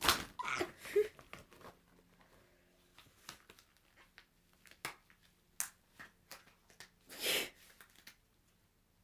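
Swim cap being stretched and pulled down over the head by hand: scattered rubbery rustles and small clicks, with a sharp rustle at the start and a louder half-second hiss about seven seconds in.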